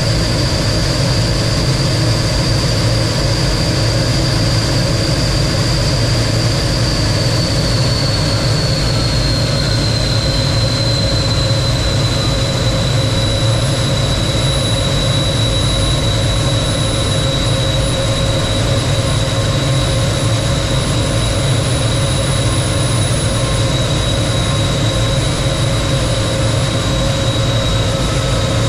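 T-33 jet's turbojet engine running steadily in flight, with a loud constant rush and a high whine that drops slightly in pitch about eight seconds in.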